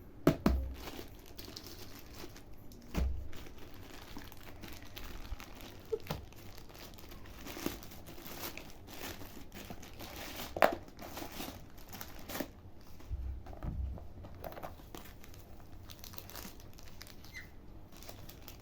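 Plastic parcel packaging crinkling and tearing as it is opened by hand, with scattered sharp clicks and knocks.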